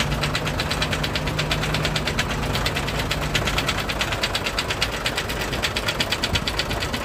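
Hino H07D diesel truck engine running with a rapid, even knocking. The knock comes from a broken cylinder liner and damaged piston, which also sent oil out of the silencer.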